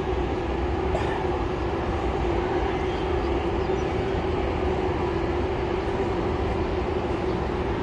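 Steady urban mechanical drone with a constant low hum that does not change in level or pitch.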